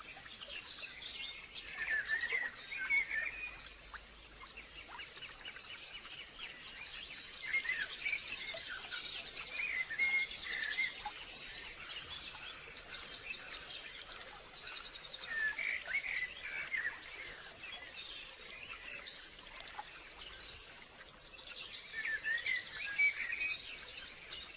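Wild birds calling in a natural soundscape: bouts of chirps every few seconds, mixed with fast, high trills, over a steady high-pitched hum.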